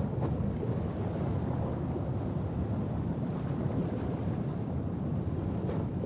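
Steady, low rumbling wash of water noise: the muffled ambience of being underwater.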